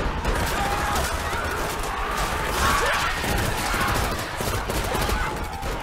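Chaotic action-scene soundtrack: a dense run of gunfire and crashes, with people screaming and shrieking over it.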